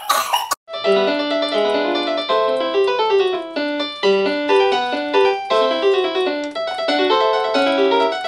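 A short cough, then a Korg digital piano playing a flowing tune of quick broken-chord notes.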